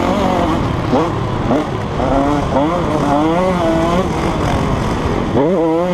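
KTM 150 SX single-cylinder two-stroke engine revving up and down as the bike is ridden, its pitch climbing and dropping again and again with throttle and gear changes, with a sharp climb near the end.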